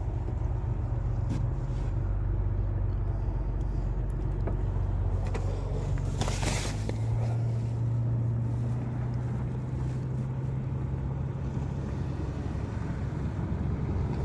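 Steady low hum of an idling engine, with a brief hiss about six to seven seconds in.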